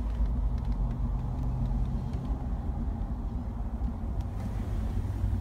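A 1974 Ford Gran Torino's engine idling, heard from inside the cabin as a steady low rumble.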